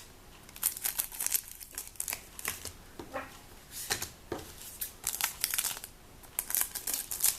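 Trading-card packet wrappers crinkling and tearing as packets are opened by hand, in irregular rustling crackles.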